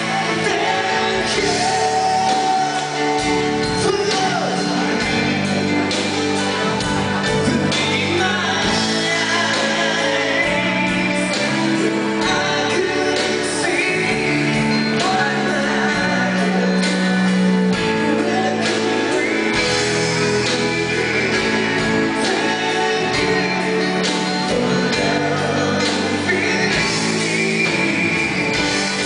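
Live band playing, with a woman singing lead over drums, bass and guitar.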